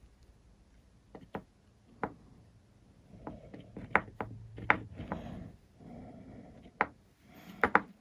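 Workbench handling noises: irregular sharp clicks and knocks with short bursts of rubbing in between, the loudest knocks coming in the second half.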